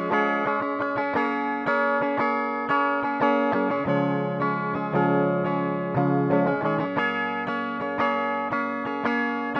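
Instrumental music led by guitar: plucked and strummed chords in a steady rhythm, with no singing.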